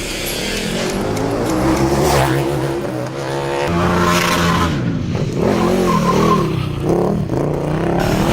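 KTM 1290 Super Duke R EVO's V-twin engine revving hard, its pitch climbing and dropping again and again, with quick blips near the end.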